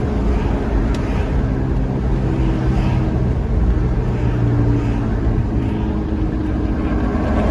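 A car driving along, heard from inside: steady engine hum and road rumble.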